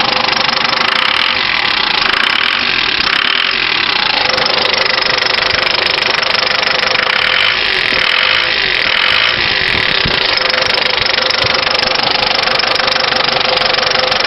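1996 Ford Transit 2.5 diesel engine running with a knock from the high-pressure fuel injection pump, a knock whose cause the owner does not know.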